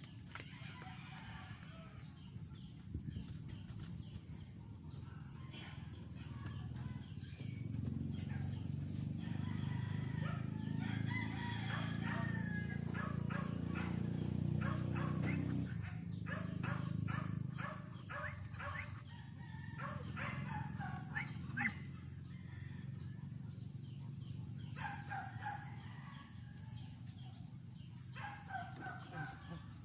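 A rooster crows several times, over a low steady hum that swells for several seconds in the middle.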